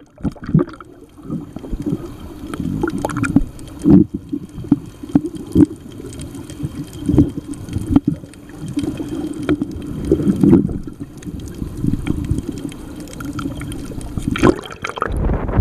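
Muffled underwater sound from a camera held below the surface while snorkeling: water sloshing and gurgling, with scattered clicks. Near the end a louder low rumble comes in.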